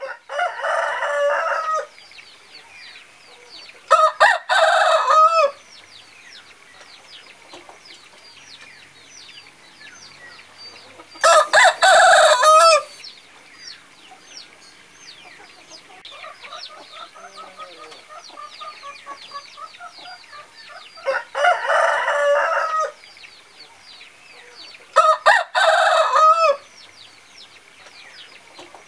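Roosters crowing five loud times, each crow about a second and a half long, with a fainter crow from farther off about midway. Constant faint, high chirping runs underneath.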